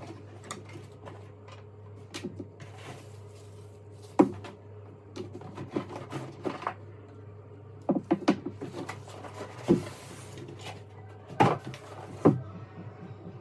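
Cardboard box being unpacked by hand: flaps and packing rustle and scrape, with a string of sharp knocks and thuds. The loudest come about four seconds in and again near the end, when a polystyrene foam block is lifted out onto the table.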